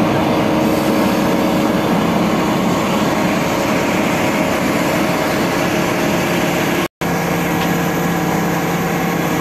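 Truck-mounted mobile crane's engine running steadily and loud, heard close to the machine. The sound cuts out for a moment about seven seconds in.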